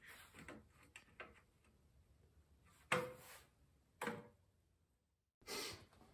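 A few light knocks of a spirit level being set down and shifted on a welded steel frame, the loudest about three seconds in with a brief metallic ring. Near the end, after a sudden dropout, a short rustle.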